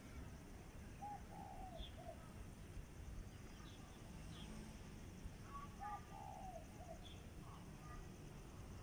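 A dove cooing a short three-note phrase twice, about five seconds apart, with a few faint high chirps from small birds over a low, steady background rumble.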